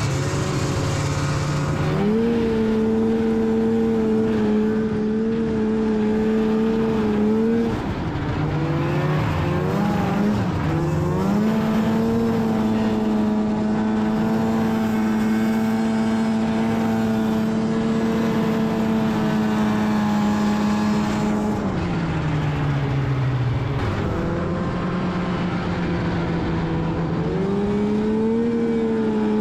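Polaris Indy 500 snowmobile's two-stroke engine running under way at steady high revs, easing off and picking back up about 8 seconds in, then dropping away around 22 seconds and climbing back near the end.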